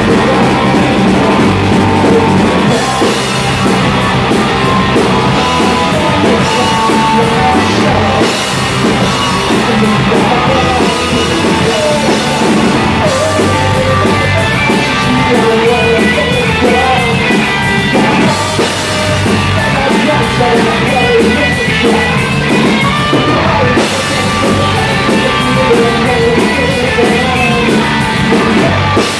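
Punk rock band playing live: electric guitars and a drum kit with crashing cymbals, and a lead vocal sung into the microphone.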